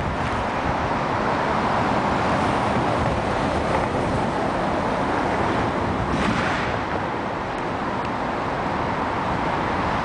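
Steady city street traffic noise of passing vehicles, with a brief swell about six seconds in.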